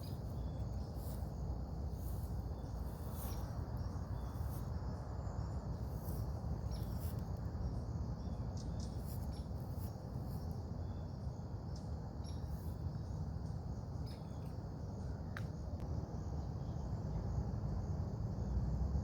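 Steady chirring of crickets or other insects over a low rumble of outdoor noise, with a few faint ticks scattered through.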